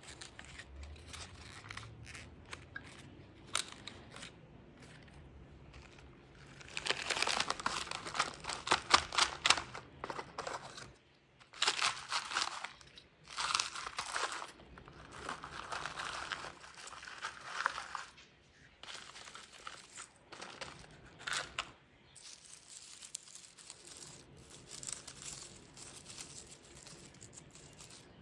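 Crackling and crunching of a flexible plastic nursery pot and its bark potting mix as a Cattleya orchid is worked out of the pot, with chunks of bark spilling out. The loudest, densest crackling comes about a third of the way in, with shorter bursts after and softer rustling near the end as bark is picked from the roots.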